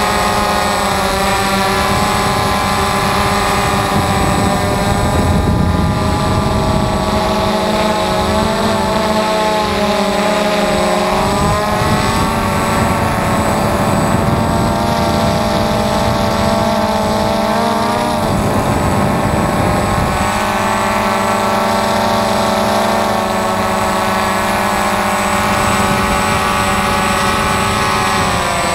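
DJI Phantom FC40 quadcopter's motors and 9-inch propellers whining in flight, loud and close. The pitch of the whine rises and falls as the motors speed up and slow down while the drone manoeuvres.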